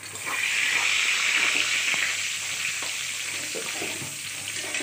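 Hot oil in a kadai sizzling loudly around a tempering of whole cumin, nigella seeds, dried red chilli and bay leaves; the hiss starts suddenly and fades slowly, with a few faint knocks of the spatula.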